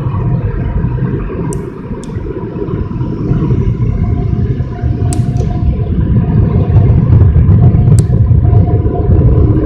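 Automatic tunnel car wash heard from inside the car: a loud low rumble of the wash machinery and water spray on the car's body, with a few sharp clicks. It grows louder in the second half.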